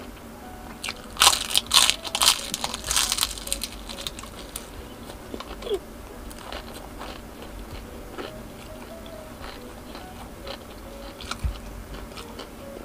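A person biting into and chewing crispy fried street food, with a run of loud crunches between about one and three and a half seconds in, then softer chewing with scattered crunches.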